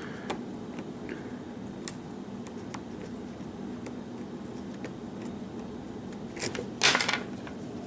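Scattered faint metallic clicks and ticks from a lock pick and tension wrench working the pins inside a challenge lock, over a steady low hum. Two louder brief noises come near the end.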